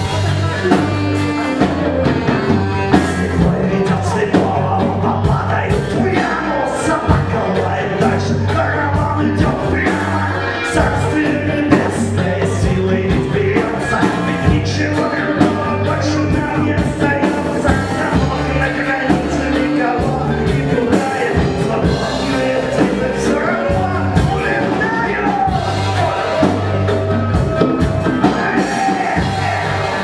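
A live rock band playing with a lead singer: a drum kit and congas keep a steady beat under electric guitars, saxophone and a strong bass line.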